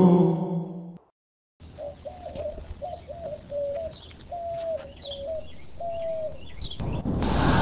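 A voice trails off in the first second, then a brief silence. After that comes a bird sound track: a dove cooing in a run of short repeated notes, with small birds chirping faintly higher up.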